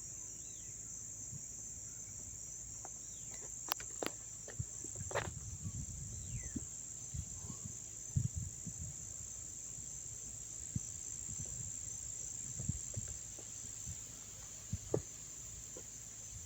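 Crickets chirping in a steady, unbroken high-pitched chorus, with a few faint knocks and rustles scattered through it.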